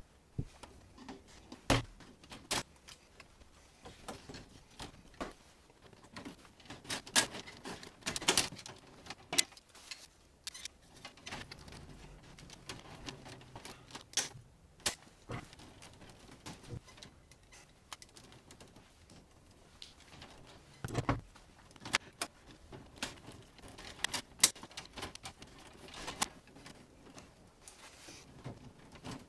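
Irregular clicks and clacks of plastic circuit breakers and metal being handled in an open breaker panel, as breakers are unclipped and snapped onto the bus bar.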